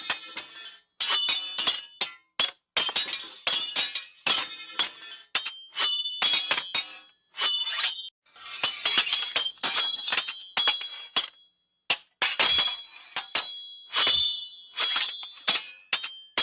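Sword blades clashing: a long, irregular series of sharp metal strikes, many of them ringing on briefly with high tones.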